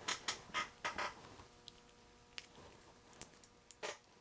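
A few short, faint clicks and light knocks, closely spaced in the first second and then sparser, over a faint steady hum.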